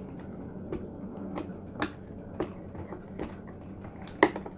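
Small irregular clicks and taps of fingers handling tiny antenna cable connectors on a remote control's circuit board, with a sharper click about four seconds in as a connector snaps into place. A faint steady hum runs underneath.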